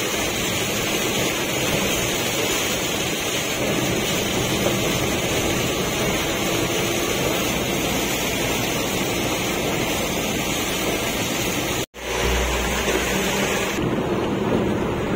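Steady hiss of heavy rain on a Suzuki DA63T mini truck's cab and windshield, mixed with tyre and road noise, heard from inside the cab while driving. About twelve seconds in the sound drops out for a moment, and a deeper, steady road rumble from the moving truck takes over.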